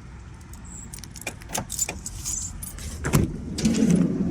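A bunch of keys jangling and clicking, then a solid thump about three seconds in, followed by a low rumble.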